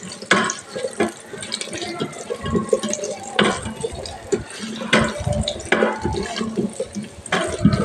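Small onions and green chillies sizzling in hot oil in a rice cooker pot, with a spatula scraping and knocking against the pot now and then as they are stirred.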